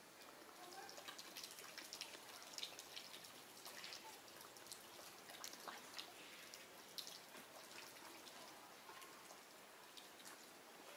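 Near silence: faint outdoor ambience with scattered soft, high ticks and clicks at irregular intervals.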